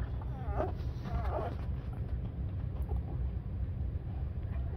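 Week-old Labrador puppies nursing, one giving a few short squeaky whimpers in the first second and a half, with fainter squeaks later, over a steady low rumble.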